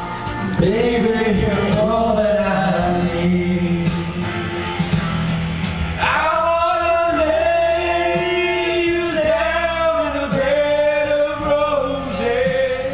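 A man singing karaoke into a handheld microphone over a music backing track, holding long sung notes, most strongly in the second half.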